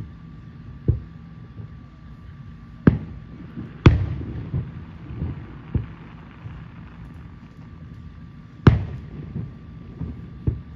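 Aerial firework shells bursting at a distance: a string of sharp booms at uneven intervals, each trailing off in a rolling echo. The loudest comes about four seconds in, and another strong one just before the end.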